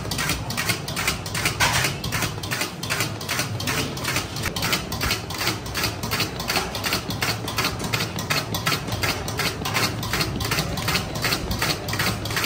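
Rapid, even clatter of metal cooking utensils at a street-food stall, about four strikes a second, over a low steady hum.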